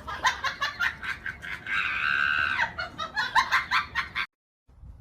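A fast run of short, sharp animal calls with one longer drawn-out call about two seconds in, cut off suddenly just after four seconds.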